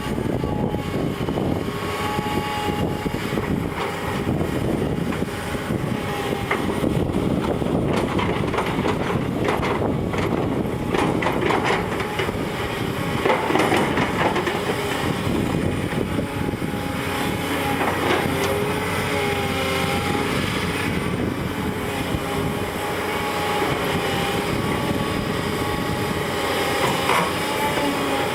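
Heavy earthmoving machinery working: a diesel engine running steadily under clanking metal, with thin wavering squeals coming and going.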